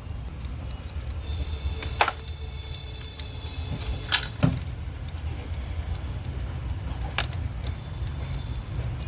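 A few sharp metal clinks from tools and parts as a car's electric power steering column is taken apart, over a steady low rumble.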